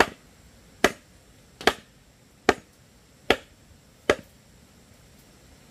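Wooden mallet knocking on split-bamboo flooring: six sharp, evenly spaced blows a little under a second apart, stopping about four seconds in.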